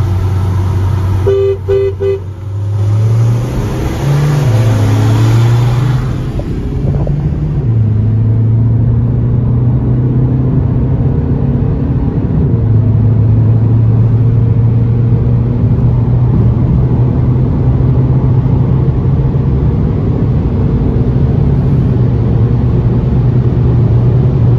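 Three short two-tone car horn honks about a second and a half in, then a tuned VW Jetta TDI turbodiesel engine pulling at full throttle, heard from inside the cabin. The engine drone drops in pitch twice, around four and seven seconds in, at gear changes, then holds a steady note at high speed.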